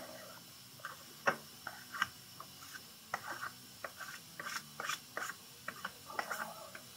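A flat spreader scraping and working body filler on a mixing board: a run of short, irregular scrapes and light taps, busiest in the second half.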